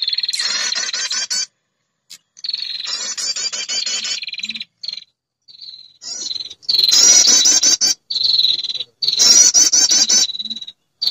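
Lure recording of a female perenjak's call: bouts of a fast trill of repeated notes, each bout opening on a thin high note and lasting one to two seconds, repeated with short silent gaps.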